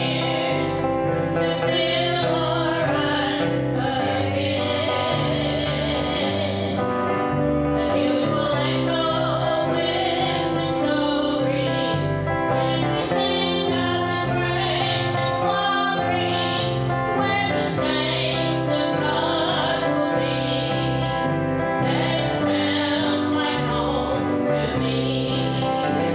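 Country gospel song: several voices singing together over a steady instrumental backing.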